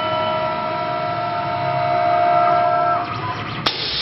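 CNC wood turning lathe running and cutting a wooden spindle: a steady whine of several tones over a noisy grinding, which stops about three seconds in. Near the end there is a sharp click and then a short burst of hissing noise.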